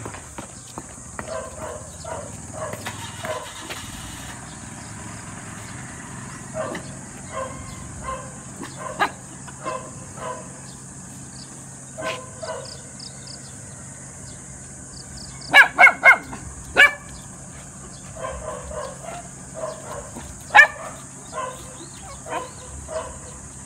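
Dogs barking and yipping: scattered short barks throughout, with a burst of several loud barks about two-thirds of the way through and one more loud bark a few seconds later.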